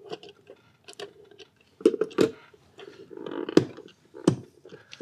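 Handling noise from a wall clock being turned and moved by hand: irregular sharp clicks and knocks of its case, the loudest about two seconds in and again past three and a half seconds, with some rustling in between. The clicks are uneven, not a steady tick.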